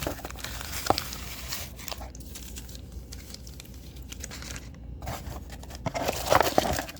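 Crinkly plastic and foil packaging rustling and crackling as the contents of a Pokémon trading card box are handled. There is a sharp tap about a second in and a louder burst of crinkling near the end.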